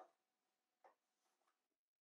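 Near silence, with two very faint light taps as plywood strips are pushed into place against the bench stops.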